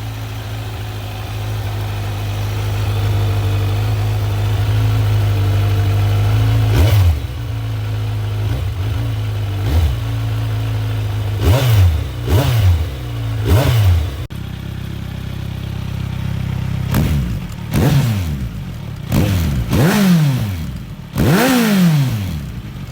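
Kawasaki Z900 inline-four engine idling steadily, then blipped several times, each rev rising sharply and dropping back, as its exhaust note is compared between the stock exhaust and an SC-Project SC1-R carbon muffler. The sound changes abruptly about 14 seconds in, where the recording cuts, followed by five more throttle blips.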